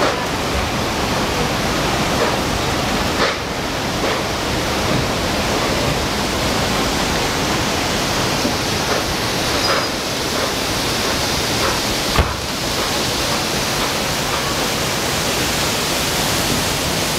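Steady rushing roar of a mountain creek's whitewater cascading over rocks, an even noise with no break. A brief knock about twelve seconds in.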